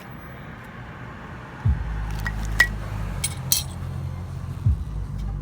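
A few sharp, light metallic clinks from brake pads and metal hardware being handled. Background music with a deep bass comes in about a second and a half in and carries on under them.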